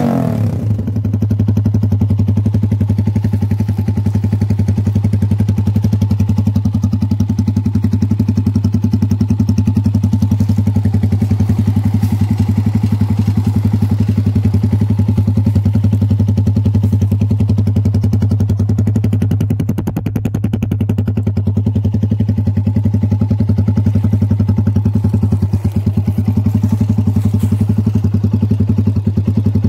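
150cc motorcycle engine running through a Paolucci stage 1 aftermarket exhaust. It falls back from a rev right at the start, then idles steadily.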